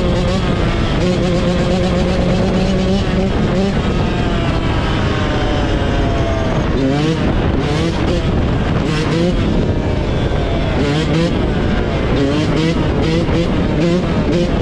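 Engine running loudly, held at a steady speed for a few seconds, then revving up and down repeatedly, its pitch rising and falling.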